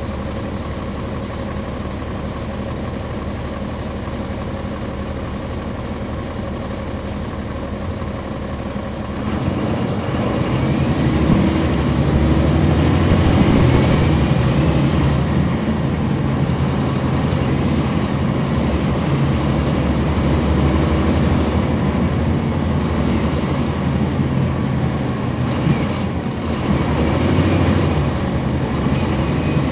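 Caterpillar C13 diesel engine of a NABI 40-SFW transit bus heard from the rear seats inside the bus: running steadily at low revs, then about nine seconds in it grows louder as the bus pulls away and accelerates, with a rising whine from the ZF Ecomat automatic transmission. The engine sound dips briefly near the end, then picks up again.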